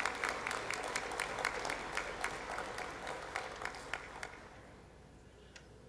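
Audience applauding, the clapping loudest at first and dying away over about four seconds, with a few last scattered claps near the end.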